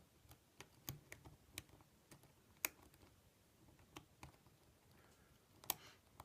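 Faint, irregular small metallic clicks of a hook pick working the pins of a Euro profile cylinder lock under tension, with two louder clicks about two and a half seconds in and near the end, as the pins set during single-pin picking.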